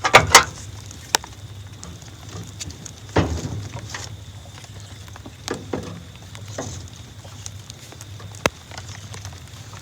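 Wood fire crackling in a camp stove, with sharp single pops from the burning wood and a few louder knocks.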